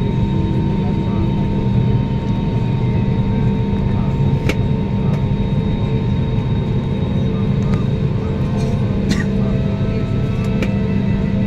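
Steady rumble of a jet airliner's engines at taxi, heard inside the passenger cabin, with a couple of brief clicks.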